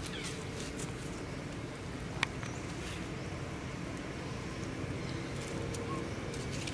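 Steady low outdoor background rumble, with one sharp click about two seconds in and a few faint, short high-pitched chirps.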